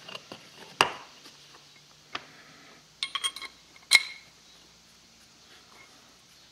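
Metal clinks of a heated ball bearing being handled and slid onto a steel scooter crankshaft: a few light clicks, a quick cluster of clinks about three seconds in, then a sharp ringing clink about four seconds in as the bearing goes onto the shaft.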